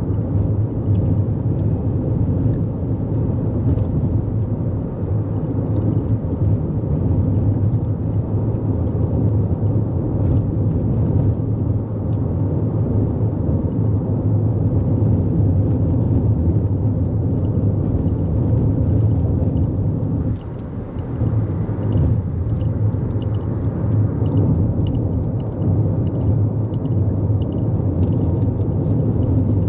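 Steady road noise from a 2024 Toyota Corolla Cross cruising on a freeway: a low tyre-and-engine rumble that dips briefly about two-thirds of the way through.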